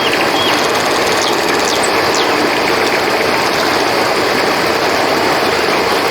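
River water flowing, a steady even rushing. A few short high chirps sound over it in the first two seconds.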